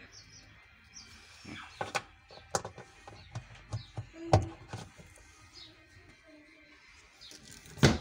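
Plastic clicks and knocks of a Bruhm washing machine's lint filter being handled and pushed back into its slot on the tub wall, with a louder knock about four seconds in. Near the end comes a single loud thump as the machine's lid is shut. Faint bird chirps sound in the background.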